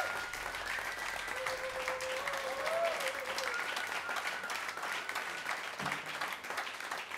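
Audience applauding at the end of a live rock song, a dense, steady clapping.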